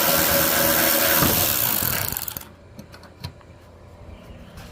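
Power tool with a 7mm socket spinning a small bolt out of the grille: a steady motor whine over loud mechanical noise that stops abruptly about two and a half seconds in, followed by a few light clicks of metal parts.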